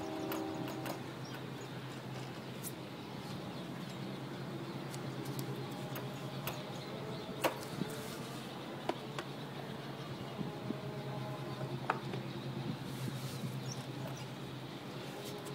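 A few sharp, isolated metal clicks from a spanner working the bleeder valve on a motorcycle's rear brake caliper, over a steady low hum.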